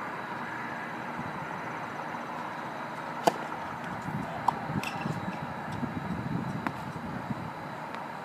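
Tennis ball struck by a racket: one sharp, loud pop a little over three seconds in, followed about a second later by a fainter hit from the far end of the court. Shoe scuffs on the hard court follow during the rally, over a steady background hum.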